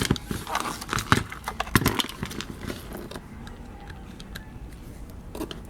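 Clicks and knocks of small plastic compressor parts being handled and worked loose, dense for the first two seconds or so, then occasional.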